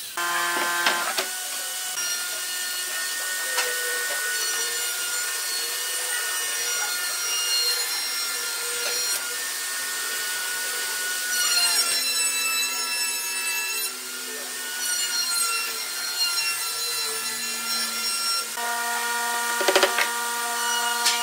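Wood rubbing and scratching: pine boards and a straightedge sliding on a workbench and a pencil marking the wood, under soft background music of sustained tones. A few sharp knocks come near the end.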